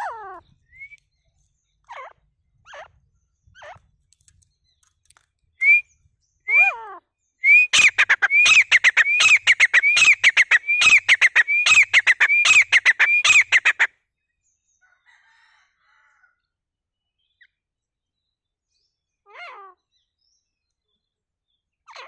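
Grey francolin calling. A few short, separate call notes come first, then about a third of the way in a loud rapid run of ringing rising notes, two or three a second, for about six seconds. After that there is one more faint call near the end.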